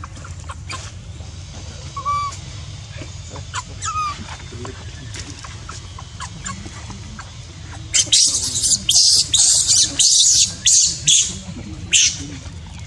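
Baby macaque giving a few short squeaks, then a rapid run of loud, high-pitched shrieks from about eight seconds in.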